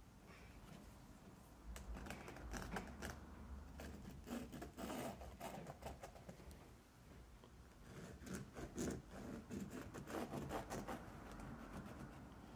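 Pen scratching across the fabric of a chest rig as the edges of nylon webbing strips are traced, in two spells of quick strokes with a short pause between them.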